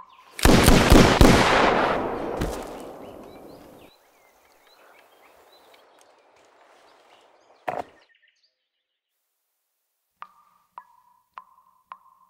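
A single loud gunshot about half a second in, its boom dying away over about three seconds; a lone sharp knock near eight seconds. From about ten seconds a tap drips, a short plink of water roughly every 0.6 seconds.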